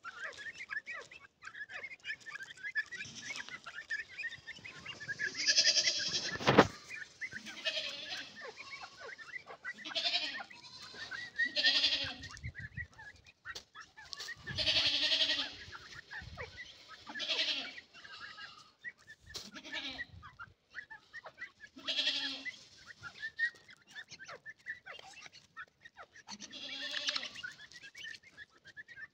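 Young partridges (teetar chicks) peeping with short high chirps throughout. A louder, drawn-out bleating call comes every two to three seconds, and there is one sharp click about six seconds in.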